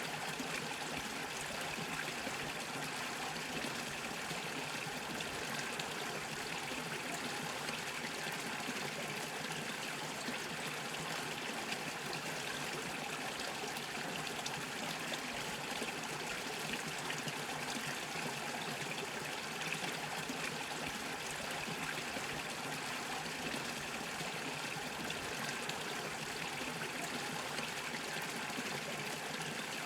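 Small stream of water bubbling and trickling steadily over stones.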